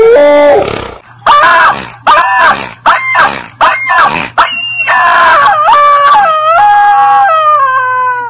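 Yellow rubber chicken toy being squeezed, giving a string of five short squawking screeches and then one long drawn-out squawk whose pitch drops in steps near the end.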